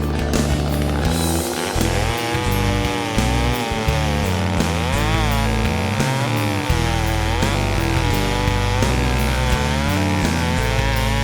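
Gas chainsaw cutting wood, its engine pitch climbing and sagging again and again as it revs and works through the cut. Background music with a steady bass line plays along.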